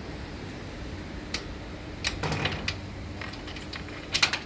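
A few sharp clicks and knocks of a phone or camera being handled, the loudest cluster near the end, over a steady hiss with a faint hum.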